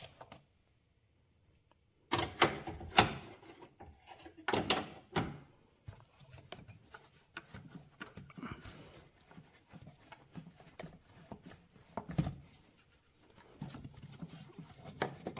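Irregular clicks and knocks of a wrench and hose clamp being worked by hand in a car's engine bay as a coolant tube's clamp is loosened and the hose freed. The sound begins after a brief silence.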